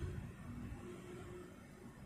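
Faint low background rumble with no distinct event: room tone.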